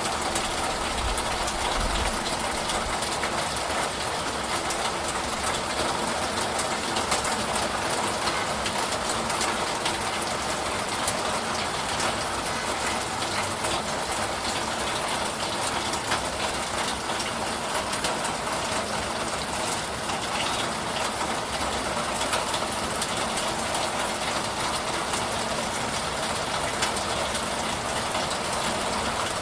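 Steady rain falling, an even hiss with countless small drop ticks scattered through it.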